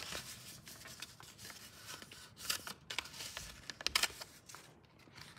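A sheet of paper rustling and crackling as it is handled, folded and creased by hand, with a few sharper crackles around the middle.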